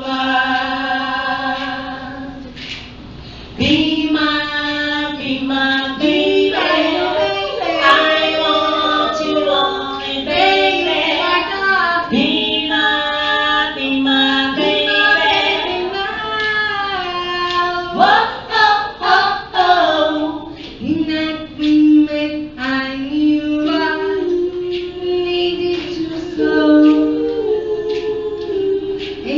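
Women's voices singing a 1960s girl-group medley live, several voices together in harmony like a chorus.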